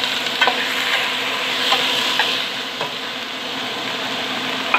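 Chicken pieces sizzling in hot oil with sautéed garlic and onion in a pot, stirred, with a few light clicks of the utensil against the pot.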